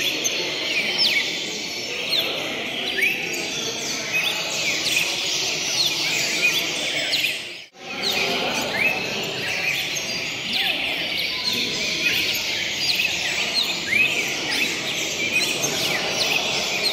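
Many caged cardinals singing at once in a dense chorus of overlapping chirps and song phrases, over a steady low background noise. The sound drops out for an instant about eight seconds in.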